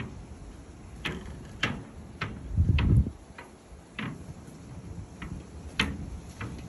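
Footsteps on a deck walkway, sharp steps at a walking pace of roughly two a second with a gap of about a second and a half in the middle. A brief loud low rumble comes about halfway through.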